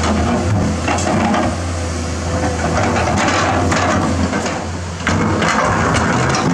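Komatsu PC210-10 hydraulic excavator's diesel engine running steadily under working load, with repeated knocks and scraping as the steel bucket pushes a large boulder over the dirt. The sound dips slightly, then comes back up sharply about five seconds in.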